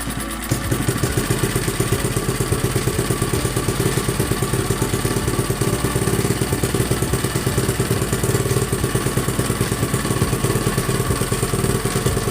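Small gasoline generator engine running steadily, with a rapid, even firing beat.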